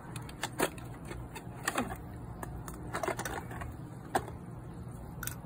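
Irregular clicks and knocks of brass hose fittings and a plastic inline RV water filter being handled and unscrewed, a few with a short squeak, over a steady low rumble.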